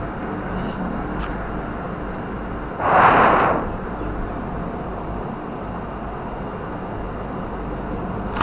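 Lamb lungs and onions cooking in a pot on the stove: a steady sizzling hiss, with a louder burst of hiss lasting under a second about three seconds in.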